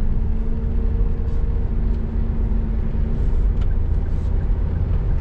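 Cabin noise of a Toyota Rush on the move: a steady deep rumble of engine and tyres, with an engine hum that fades about three seconds in.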